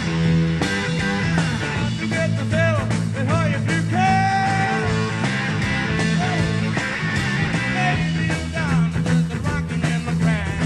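Rock band playing: a driving electric bass line and drum kit, with a lead part whose notes bend and slide up and down above them.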